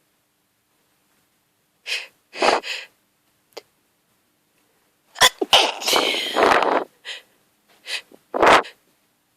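A woman sneezing over and over in a hayfever sneezing fit set off by grass pollen. There is a quick pair of sneezes about two seconds in, a long, dense run from about five to seven seconds in, and a few more near the end.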